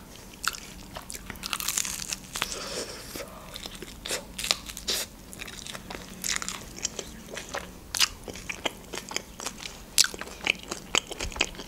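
Close-up eating sounds: biting into and chewing a toasted tombik doner sandwich, its crusty pressed bread crunching in many quick crackles.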